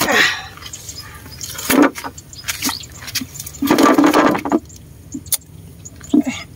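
A freshly caught tilapia being handled on the floor of a boat: irregular bursts of rustling, flapping and knocking as the fish is held down among loose grass and an airgun dart is worked out of it. The longest burst comes about four seconds in, and there is a single sharp click near the end.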